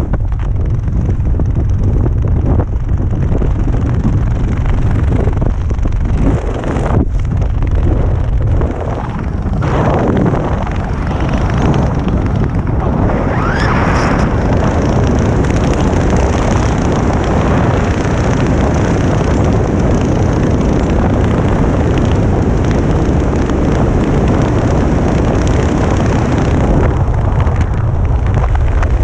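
Wind buffeting a helmet camera's microphone during a descent under an open parachute canopy: a loud, steady rumbling rush, briefly easing about a quarter of the way through.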